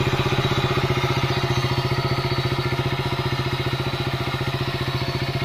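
KTM Duke 200's single-cylinder four-stroke engine idling steadily, with an even, rapid pulse of firing strokes.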